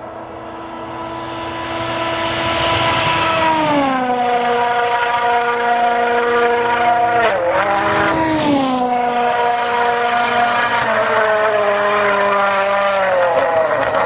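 Rally car's engine running hard at speed and getting louder over the first few seconds, its note holding steady and then dropping in steps several times.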